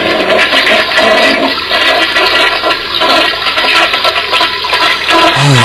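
Toilet flushing, heard over a phone line: a steady rush of water as the bowl empties and drains without clogging.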